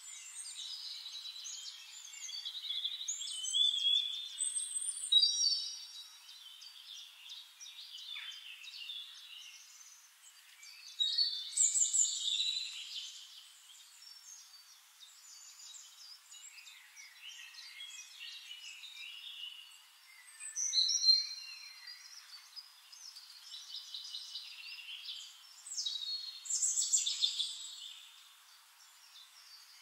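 Forest birds singing and calling: overlapping high chirps and whistled phrases, with louder bursts every several seconds.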